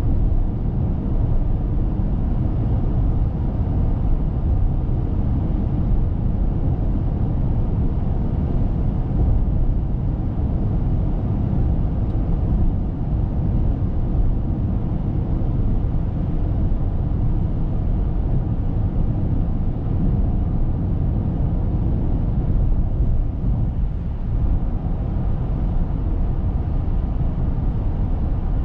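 Steady low road and wind noise heard inside the cabin of a Mitsubishi Eclipse Cross PHEV cruising at expressway speed.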